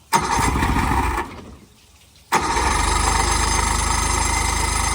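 Johnson 70 hp outboard motor cranking on its electric starter in two tries, a short one of about a second, then a longer one of almost three seconds, without the engine catching.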